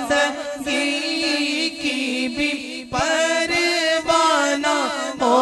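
A man singing a naat without instruments, drawing out a long, wavering melodic line over a steady held low drone.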